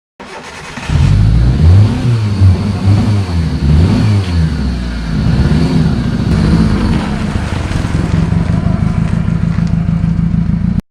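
A 2007 Hyundai Santro Xing's petrol engine being revved several times, pitch rising and falling, then settling into a steady idle about halfway through. It starts and cuts off abruptly.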